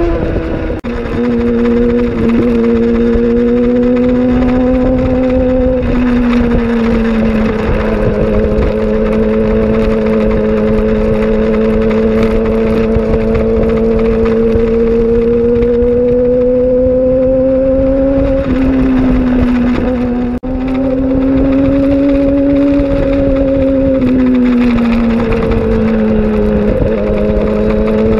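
Sport motorcycle engine running hard at high revs, heard from the bike itself with wind noise. The pitch holds for long stretches and drifts gently up and down, with brief drops in level about a second in and around twenty seconds in.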